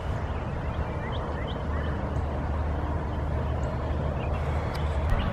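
Steady low rumble of outdoor ambience with a few faint, short bird chirps about one to two seconds in.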